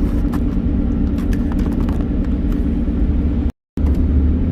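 Car road noise heard from inside the cabin: a steady low rumble with scattered small knocks and rattles. It cuts out completely for a moment about three and a half seconds in.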